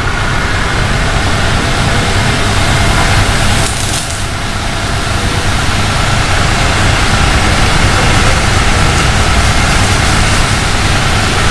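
Electric motor and belt-driven car-wash pressure pump running steadily under load, with the high-pressure water jet hissing from the hose nozzle. The sound dips briefly about four seconds in, then builds again.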